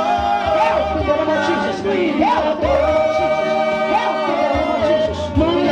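Church worship music: a voice singing long, slowly sliding held notes over a steady keyboard accompaniment.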